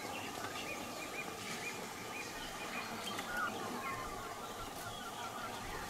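Birds calling over a steady background hiss of natural ambience: a run of short, repeated chirps in the first half, then a quick, even series of notes from about halfway on.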